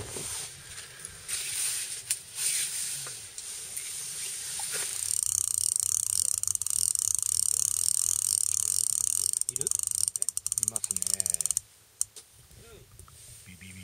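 Small electric wakasagi (smelt) ice-fishing reel winding in line with a steady whir, reeling the rig up through the ice hole; the whir turns choppy and cuts off suddenly near the end.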